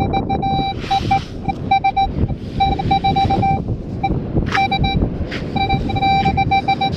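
Minelab Equinox metal detector sounding a mid-pitched target tone in repeated short and longer beeps as the coil is swept over a buried target reading 19 on its screen. Wind buffets the microphone throughout.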